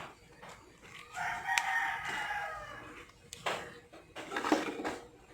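A rooster crowing: one long crow of about two seconds, followed by a couple of short knocks.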